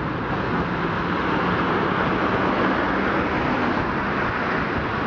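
Hankai Tramway Mo351-type tram car pulling away from its stop, a steady running rumble of the car on the rails mixed with passing road traffic.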